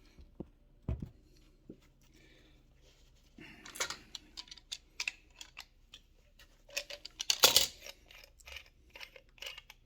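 Irregular clicks, taps and knocks of hands working on an HVAC strainer fitting and its cap, with a louder knock about a second in and the loudest one past the middle, over a faint low hum.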